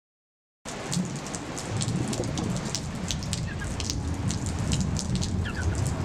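Heavy rain falling on a hard wet surface, a dense hiss full of sharp drop splats over a continuous low rumble; it starts suddenly about half a second in.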